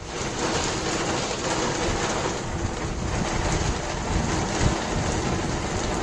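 Heavy rain falling, a dense steady hiss.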